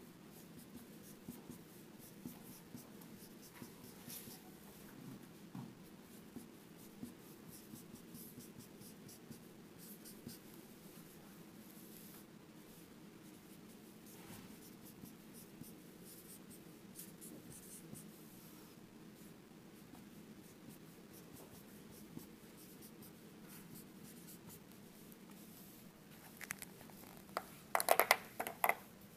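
Dry-erase marker writing on a whiteboard: many faint short strokes and taps as letters are written, over a low steady room hum. Near the end comes a brief cluster of louder, sharper sounds.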